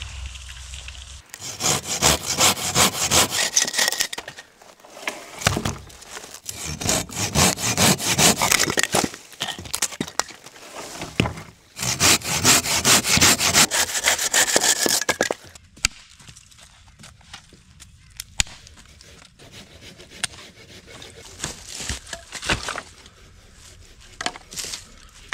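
Hand saw cutting through firewood in three spells of quick back-and-forth strokes. It stops about halfway through, leaving only a few faint knocks and clicks.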